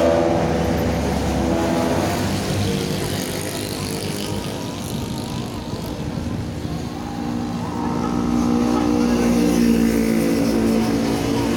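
Bus's ship-style air horn (klakson kapal laut) sounding a long low blast that fades out in the first two seconds, then sounds again from about seven and a half seconds in, with vehicle engine and traffic noise between the blasts.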